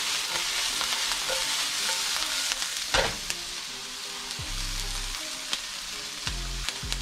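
Mushrooms, shallots and thyme sizzling in hot oil in a nonstick frying pan as they are sautéed, a steady hiss. A sharp knock about three seconds in.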